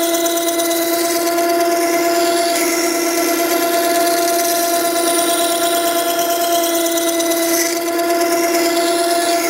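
Makita 9820 electric water stone running with a plane iron held in a jig against its 120-grit wheel, rough grinding the bevel back toward 25 degrees: a steady hum under an even high hiss of steel on stone.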